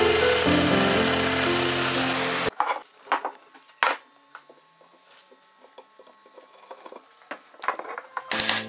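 Festool Domino XL DF 700 joiner running as it plunge-cuts a mortise in wood, stopping sharply about two and a half seconds in. Then come a few light knocks and taps of wooden parts being handled, with music starting near the end.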